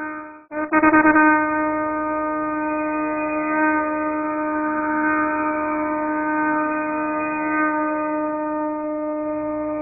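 Conch shell (shankh) blown in one long, steady note. The previous blast fades out, and a new one starts with a brief flutter about half a second in, then holds level.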